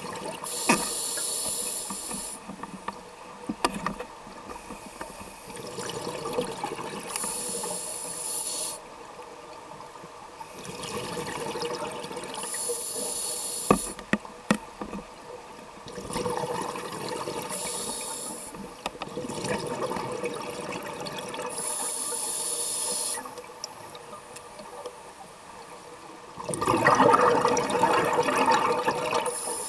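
Scuba diver breathing through a regulator underwater: a rush of exhaled bubbles and a regulator hiss, repeating about every five to six seconds.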